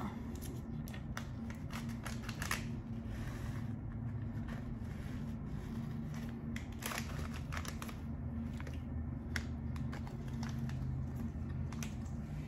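Snack packaging crinkling in scattered short crackles as it is handled and turned over, with a steady low hum underneath.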